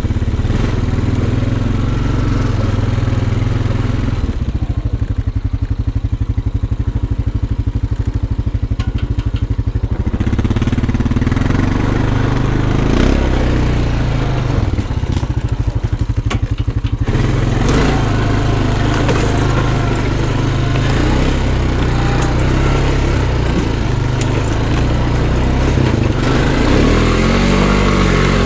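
Honda ATV engine running, revving up and down in pitch. A noisier stretch starts about halfway through.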